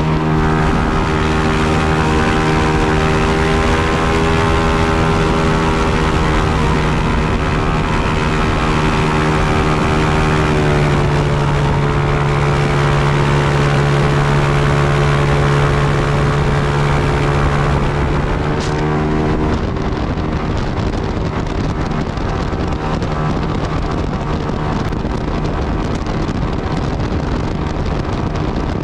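Airboat's engine and propeller running at speed, a loud steady drone under rushing wind on the microphone. About ten seconds in the pitch steps slightly lower. Near nineteen seconds in the engine tone fades into the wind noise and the sound eases a little.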